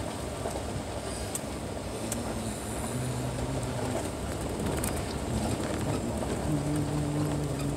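Vehicle driving along a dirt road: a steady rumble of engine and tyres on the dirt, with a low steady hum coming in about three seconds in and again near the end.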